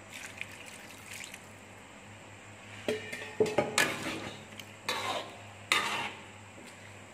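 Water poured from a steel pot into a wok of simmering fish stew, faint at first, then a spatula stirring the stew and knocking and scraping against the wok in a run of sharp clinks from about three to six seconds in.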